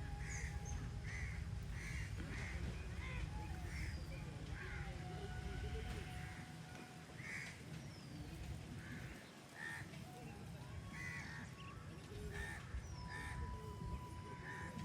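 Crows cawing repeatedly, a rapid run of caws at first and scattered caws later, with thin whistled notes from other birds and a steady low rumble underneath.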